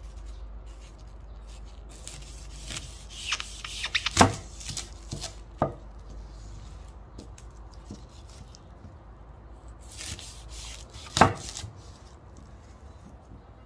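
Food being chopped with a knife: two bursts of sharp strokes, one a few seconds in and another near the end, with little between them.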